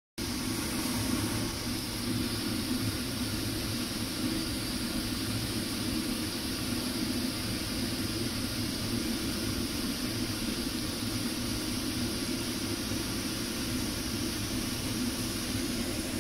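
Potato slices frying in oil in a pan: a steady hiss under a constant low drone.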